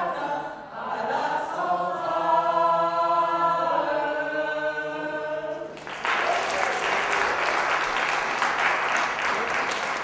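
A group of mixed voices singing unaccompanied, ending on a long held chord that breaks off about six seconds in. Audience applause follows at once, with many individual claps.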